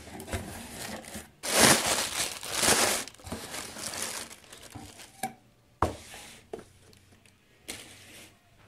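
Plastic air-pillow packing crinkling and rustling as a watch box is pulled out of a cardboard shipping carton, loudest in two bursts in the first few seconds, followed by a few sharp light knocks of handling.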